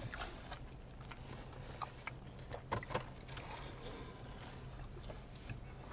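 Quiet eating sounds: faint, scattered clicks and smacks of chewing and a plastic utensil, over a steady low hum.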